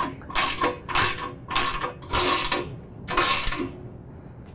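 A 13 mm socket ratchet clicking in repeated back-and-forth strokes as a bolt is tightened, about two strokes a second. It stops near the end.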